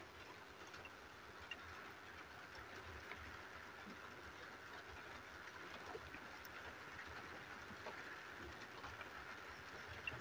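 Faint rubbing hiss of a paintbrush spreading thick red paint across paper, with a few small ticks.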